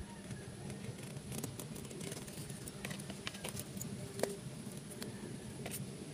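Scattered small crackles and clicks of dry coconut husk fibres being picked and torn from the base of a coconut seedling by hand, over a faint steady low hum.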